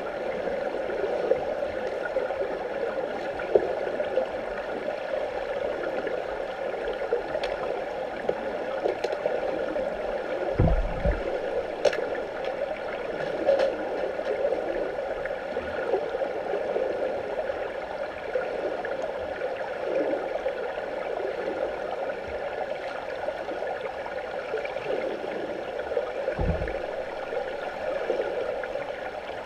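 Muffled underwater noise of a swimming pool, heard through a submerged camera: a steady wash of water with a few faint sharp clicks. There is a low thump about ten seconds in and another near the end.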